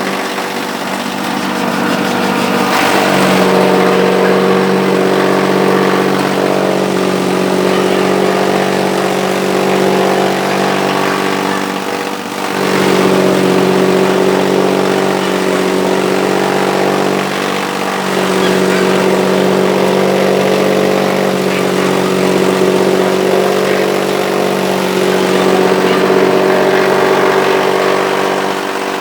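High-speed chaff cutter (silage chopper) running with a steady machine hum, its level dipping briefly a few times.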